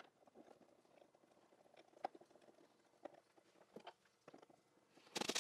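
Faint, scattered light clicks and taps from handling hard plastic socket-set packaging and a screwdriver while small screws are taken out. A louder quick clatter of clicks comes near the end.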